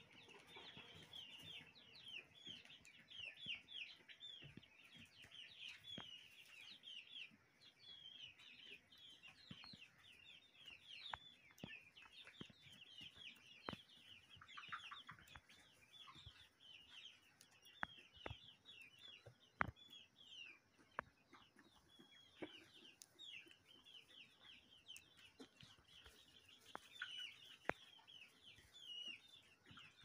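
A flock of brown hens keeps up a constant chorus of high chirping calls and clucks, with a few sharp clicks scattered through it.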